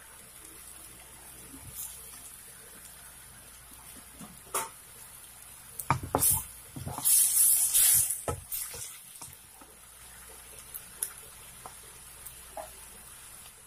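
A pan of bitter gourd, onion and tomato simmering in its liquid with a faint steady sizzle. About six seconds in, red bell pepper strips are dropped in with a few clattering knocks and a loud rush of sizzling and splashing that lasts about a second. A few more utensil knocks follow, then the quiet simmer resumes with light ticks.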